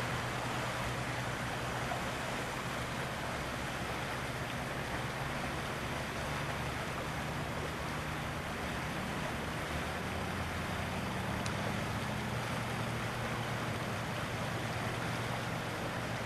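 White Pass & Yukon steam locomotive hauling passenger cars, heard as a steady rushing noise with a low hum and no distinct chuffs.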